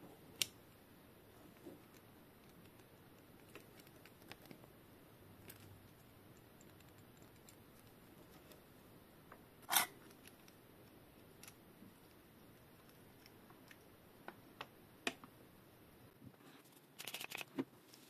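Scattered clicks and clinks of small metal brake caliper parts being handled, with one loud ringing clink about ten seconds in as a part strikes a stainless steel bowl. A short flurry of scratchy clicks comes near the end.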